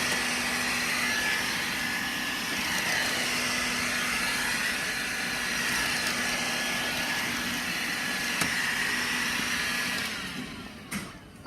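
14.4 V cordless FreeJet power-brush vacuum cleaner running steadily, a low motor hum under a high whine, then switched off near the end, its motor winding down.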